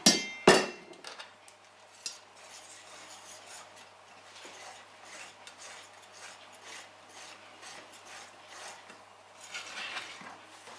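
Two sharp metallic clinks against a stainless steel bowl, then a wire whisk stirring flour into wet oat porridge in the steel bowl: a soft, steady scratching and rubbing that grows a little louder near the end.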